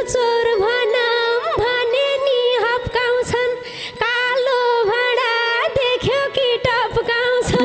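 Nepali dohori folk music: a melodic lead line with many sliding ornaments, over sparse sharp drum strokes.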